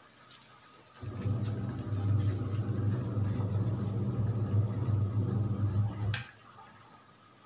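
A steady low hum comes in about a second in and cuts off suddenly about six seconds in, just after a sharp click.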